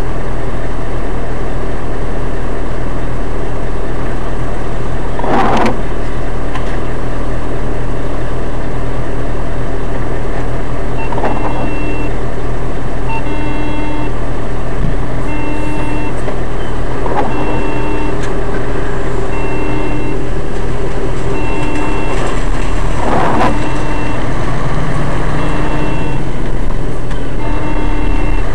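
Steady engine and road noise heard from inside a vehicle's cab on a wet road, with a beeping chime that starts about eleven seconds in and repeats roughly once every second and a half. A short swishing sound comes about every six seconds, four times.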